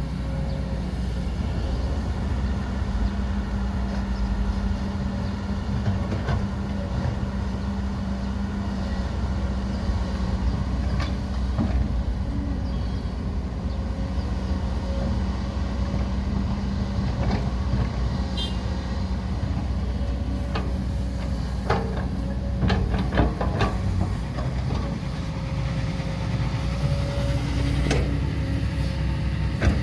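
Heavy machine's engine running steadily, with a handful of sharp clanks in the last third.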